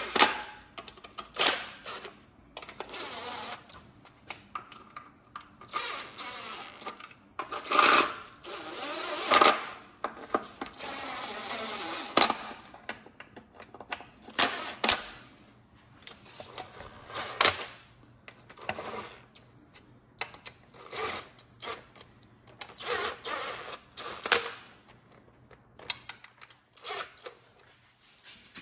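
Cordless DeWalt driver spinning the small M6 transmission oil pan bolts down one after another, in about a dozen short runs of a second or two each. Each run stops once the bolt begins to meet resistance. Between runs come sharp clicks and knocks as the socket is moved from bolt to bolt. Near the end only faint clicks remain.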